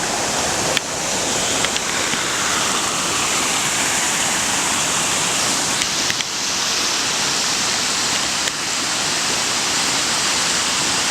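Steady rush of fast-flowing floodwater from a creek swollen over its banks, with a few brief clicks about a second in and again near the middle.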